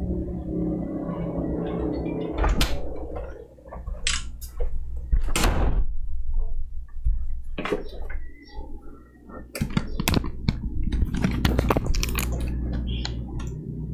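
Steady low hum under a string of sharp knocks and clicks, with a short burst of noise about five seconds in and a dense run of knocks in the second half.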